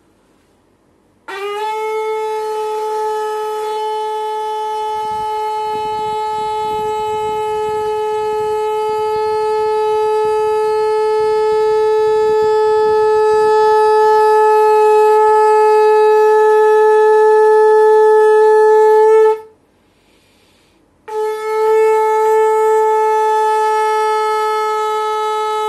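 Conch shell (shankh) blown in two long, steady blasts. The first starts about a second in with a short upward slide into the note, is held for about eighteen seconds while growing a little louder, and then stops. After a short breath the second blast begins and is still sounding at the end.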